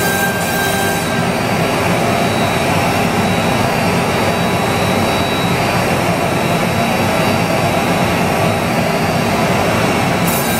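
CNC router spindle milling a groove in a wooden sheet as the gantry moves it across the bed: a loud, steady machine noise. A thin high tone drops out about a second in and returns near the end.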